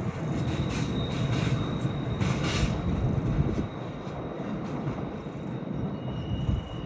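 Freightliner Class 66 freight train moving away, its rumble and wheel clatter fading, with a drop in level about three and a half seconds in leaving a fainter low rumble.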